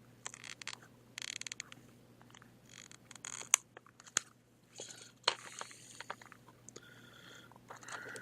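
Plastic shell of a Li-ion laptop battery pack being pried apart along its seam: bursts of crackling and scraping plastic with quick runs of clicks, and sharp snaps about three and a half and four seconds in.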